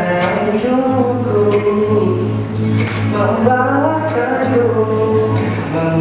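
A man singing a slow melody to his own strummed acoustic guitar.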